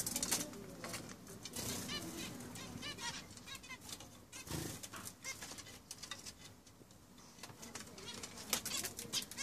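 A flock of zebra finches calling with many short, repeated nasal beeps, mixed with wing flutters.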